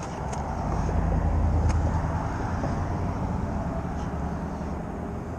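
A motor vehicle passing close by: a low rumble that swells about a second in and then slowly fades.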